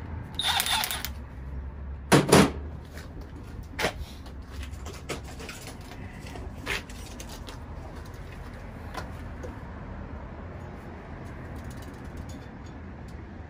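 Hand work on copper refrigeration pipe and tools: a brief scraping rustle, then one loud sharp knock about two seconds in, followed by a few lighter clicks and taps, over a steady low hum.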